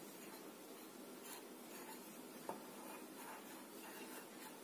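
Faint scraping and rubbing of a spoon stirring a dry flour mixture in a glass bowl, with a light click about two and a half seconds in.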